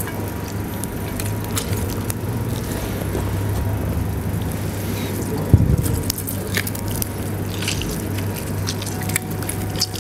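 Lemon halves squeezed by hand over sliced apples: soft wet squishing and small clicks, with one sharp knock about halfway through, over a steady low hum.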